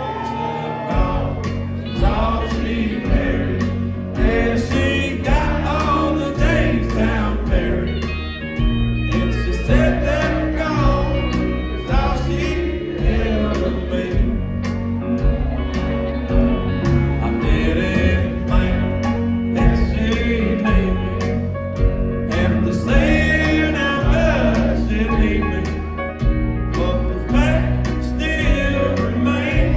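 A live country band playing a song, with a man singing lead over acoustic guitar, electric bass, drums and keyboards, heard from within the crowd.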